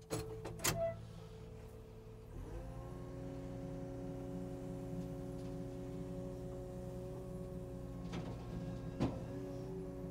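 Takeuchi TB285 mini excavator's engine and hydraulics speeding up about two and a half seconds in, then holding a steady, even hum. Sharp knocks of debris near the start and twice near the end.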